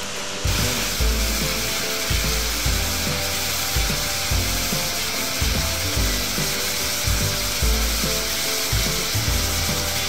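Steady rush of a waterfall, a dense hiss that sets in about half a second in, under background music with a low, pulsing bass.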